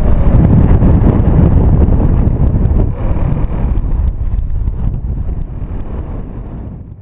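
Wind buffeting the microphone of a camera on a paraglider pilot in flight, a heavy rumbling rush that fades away over the last few seconds.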